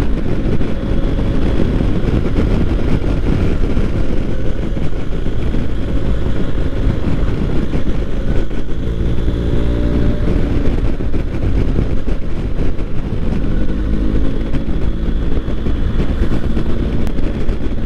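BMW R1250 GS boxer-twin motorcycle running at road speed, heard from the rider's position under a steady rush of wind and road noise. The engine note shifts as the revs change around the middle and again a few seconds later.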